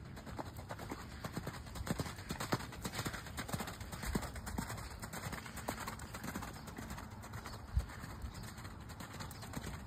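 Horse's hoofbeats at the canter on sand arena footing: an uneven run of dull thuds, with one sharper, louder thud about eight seconds in.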